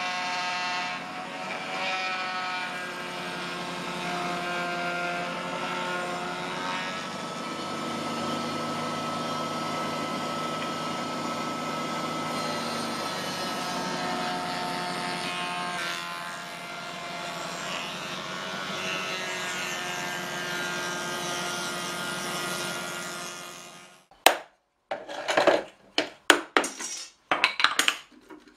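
A bench-mounted power tool running steadily as a round cherry-wood barrel head is turned against it to shape its edge, its pitch shifting with the load; it stops about 24 seconds in. After that come a few sharp wooden knocks and clatters as the staves of the barrel are handled.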